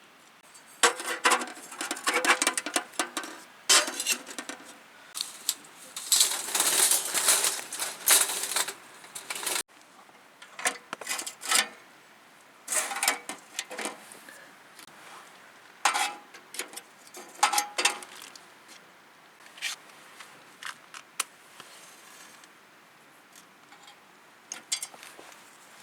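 Irregular clicks, clinks and rustles from small objects being handled, busier during the first ten seconds and sparser afterwards.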